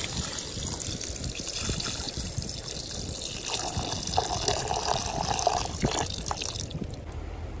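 A stream of water poured into a copper pot of lamb pieces frying in oil, splashing steadily into the pot. The pouring stops near the end.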